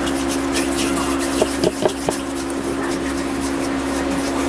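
A steady machine hum, with soft rubbing and a few light clicks from fingers in rubber finger cots smoothing polymer clay over a bead; the clicks come about one and a half to two seconds in.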